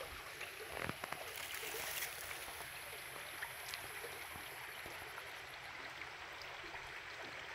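Faint, steady trickle of water running and seeping over a rock face, with a few light clicks in the first couple of seconds.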